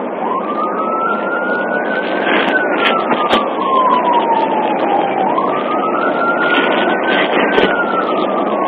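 Police car siren in slow wail mode, rising and falling twice, heard from inside the car's rear cage over loud engine and road noise, with a few sharp knocks.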